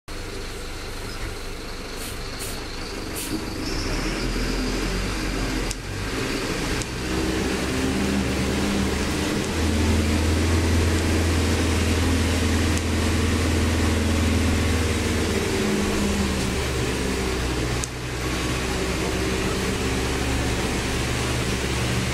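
Diesel engine of a Mercedes-Benz-chassis Mascarello Gran Via city bus running under load, heard from inside near the driver's seat. Its deep drone grows louder through the middle, then eases off briefly about three-quarters of the way through before picking up again.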